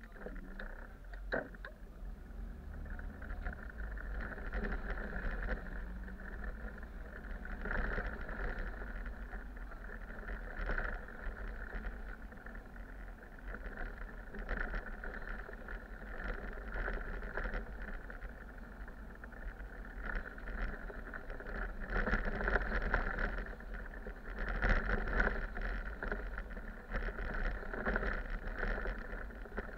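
A city bus heard from inside while driving: steady engine and road noise with frequent short rattles and knocks from the bodywork, getting louder about two-thirds of the way in.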